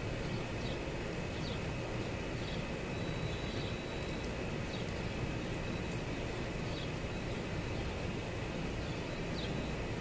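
Steady background rumble and hiss, with faint high chirps about once a second and a thin, faint high whistle joining about three seconds in.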